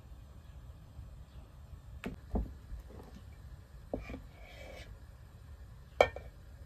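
A few sharp, separate clinks and knocks of a metal ladle against an aluminium pot while milk pudding is ladled out, the loudest near the end.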